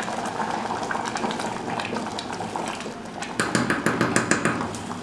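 Wooden spoon stirring a pot of white bean stew as it simmers down to thicken its sauce, with a quick run of knocks and scrapes of the spoon against the metal pot in the second half.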